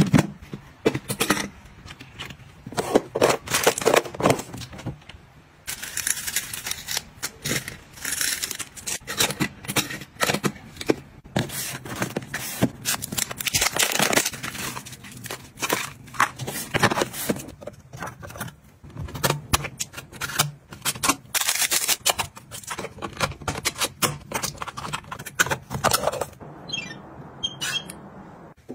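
Close-up household handling noises: rustling plastic and cloth, with many small clicks, taps and scrapes as things are handled, including a battery pack being swapped on a smart door lock. Near the end, a few short wavering electronic tones.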